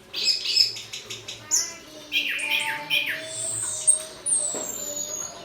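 Orange-headed thrush (anis kembang) singing a fast, varied song of chirps and short whistled phrases, ending in a long high whistle that falls slowly in pitch.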